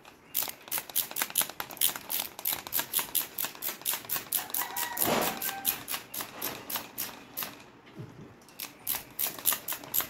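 Rapid, regular clicking of a hand screwdriver's ratchet, about five clicks a second, as screws are driven into a door lock's latch faceplate. The clicking pauses briefly about eight seconds in, then resumes.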